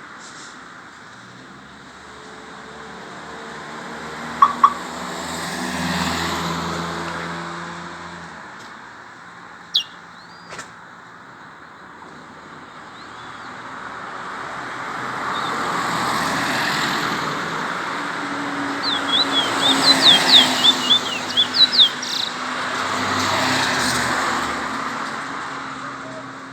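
Road traffic passing in several slow waves, with a bullfinch, a songbird, giving a few short chirps and then a quick run of high chirps about twenty seconds in.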